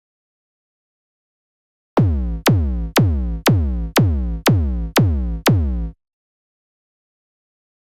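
Eight electronic kick-drum hits, about two a second, each sharp at the start and dropping in pitch, beginning about two seconds in.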